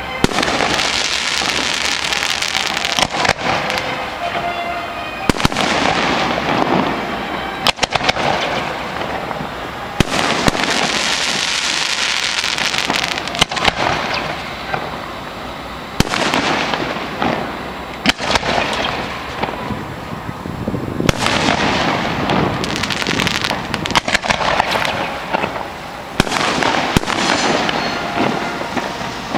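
Aerial firework shells bursting one after another, with a sharp bang every two to three seconds. Each bang is followed by a long fading hiss of sparks.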